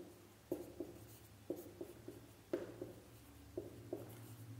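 Marker pen writing on a whiteboard: short, faint strokes coming in small bunches about once a second.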